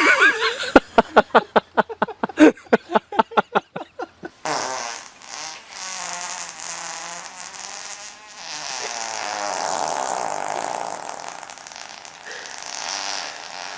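An animal fart: a fast sputtering run of short sharp pops, about six a second, for about four seconds. Then an abrupt change to a long, steady, rasping noise.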